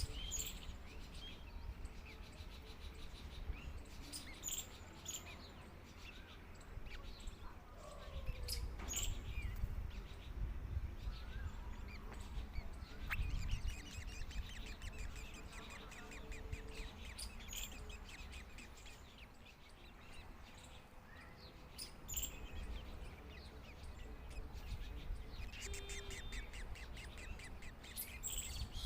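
Birds calling outdoors: short high chirps and whistles scattered throughout, with a rapid chattering run near the end, over a steady low rumble.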